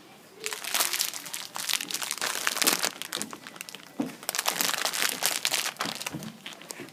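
Crackling, rustling handling noise on a phone's microphone as it is jostled and rubbed, starting about half a second in, with a short break near the middle and stopping shortly before the end.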